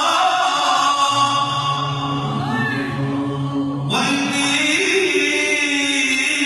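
Unaccompanied devotional dhikr chanting by men's voices, with long held notes. A low steady drone sounds from about a second in, and a new, brighter phrase starts abruptly about four seconds in.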